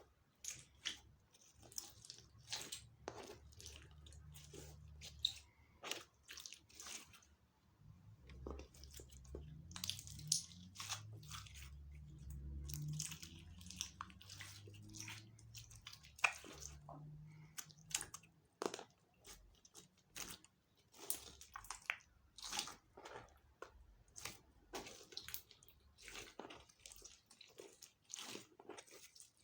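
Clear slime being worked by hand: a dense, irregular run of sticky clicks, crackles and pops, with a low hum under the middle part.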